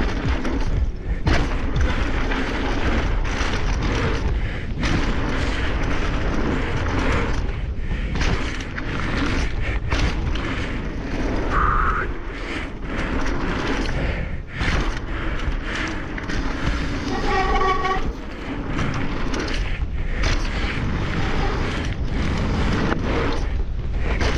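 Mountain bike descending a dirt jump trail at speed: wind buffeting the microphone over the rumble of tyres on dirt, with frequent knocks and rattles from the bike over the jumps. A brief high-pitched squeal is heard about two-thirds of the way through.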